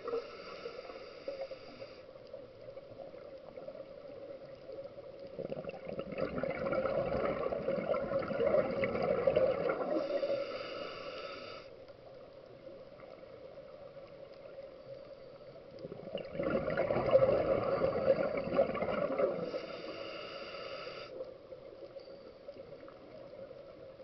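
Scuba diver's regulator breathing underwater: two long gurgling rushes of exhaled bubbles, each joined by a short hiss of air through the regulator, with quieter stretches between breaths.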